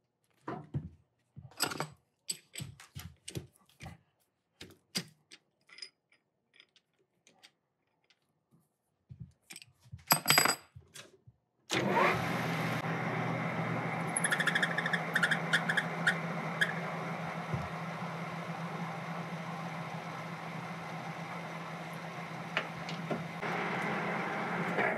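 Scattered clicks and knocks of tools and parts being handled, then a metal lathe starts up about twelve seconds in and runs steadily while turning down the end of a half-inch shaft, stopping just before the end.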